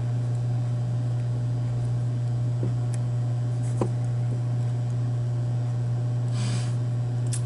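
A steady low hum runs throughout, with a few faint clicks and a brief soft hiss near the end.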